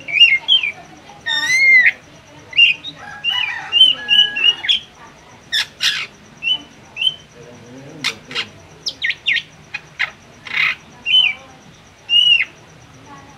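Caged drongo (srigunting) singing a varied song of short whistled notes and up- and down-slurred phrases, mixed with harsh, rasping calls. The notes come one by one in quick bursts with short pauses between them.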